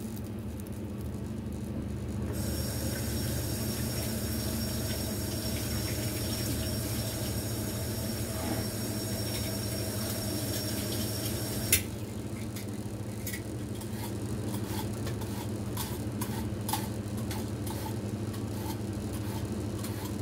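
Kitchen tap running into the sink for about ten seconds, starting about two seconds in and shut off with a sharp click near the middle. After that come small clicks and knocks of things being handled at the sink, over a steady low hum.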